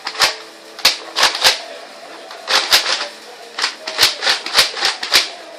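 About a dozen sharp plastic clicks and snaps in irregular clusters, from the packaging of a toy blaster being cut and pulled apart.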